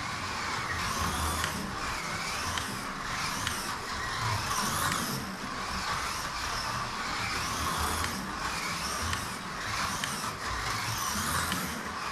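1:24-scale Scaleauto BMW Z4 GT3 slot car lapping the track: its small electric motor whines, rising and falling in pitch again and again as it speeds up and slows, over a steady running noise from the car in the slot.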